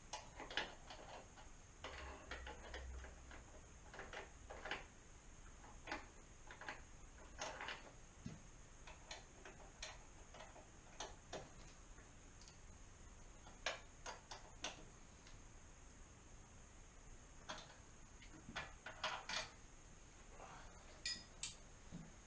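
Faint, irregular clicking and light metallic clinks of hand-tool work on a motorcycle exhaust, in short runs of a few clicks with pauses between, like a socket ratchet working the mounting bolts.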